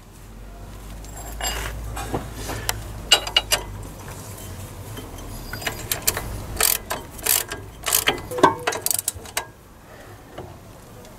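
Ratchet spanner clicking in two short runs, with metal clinks, as a 17 mm nut is done up on the new lower ball joint's bolt. A low rumble sits under the first few seconds.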